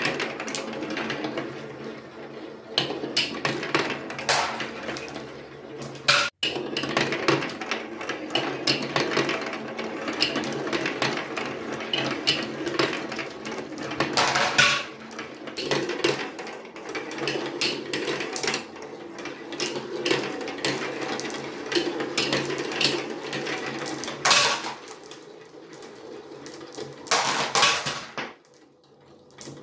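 Marbles rolling and rattling down a plastic building-block marble run, with many sharp clicks as they knock against the track pieces and each other.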